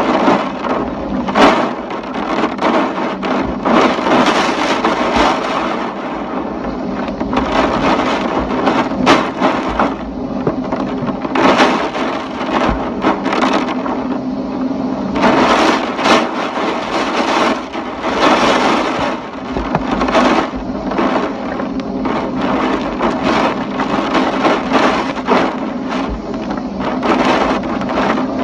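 Typhoon wind and rain, surging in gusts every few seconds, with scattered short sharp cracks and knocks.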